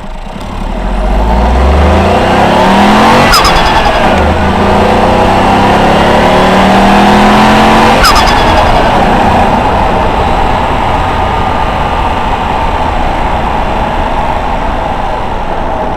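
Ford Fiesta 1.0 EcoBoost turbocharged three-cylinder heard from the engine bay near the airbox, revving up under acceleration twice. Each pull ends on lift-off, about three seconds in and again about eight seconds in, with a quick fluttering chatter of the turbo. The engine then runs on more steadily.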